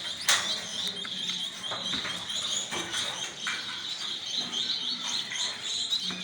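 A flock of small parrots chirping continuously, a dense overlapping chatter, with a few short knocks.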